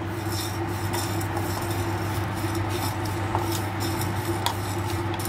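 Wooden spatula stirring whole black peppercorns, cumin and fennel seeds and curry leaves as they dry-roast in a small metal pan: light, irregular scraping and rattling strokes over a steady low hum.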